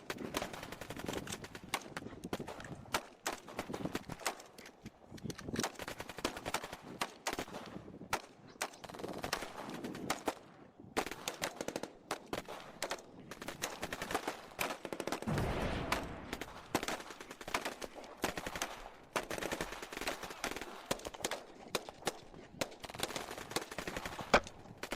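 Airsoft guns firing: scattered sharp shots and short rapid bursts throughout, with a low rumble about fifteen seconds in.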